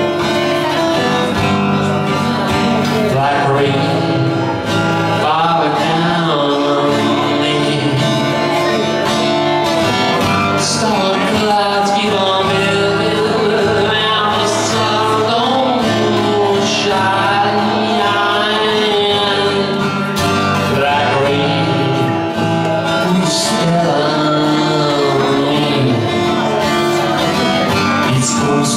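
Live acoustic guitar playing steadily, with a man singing over it.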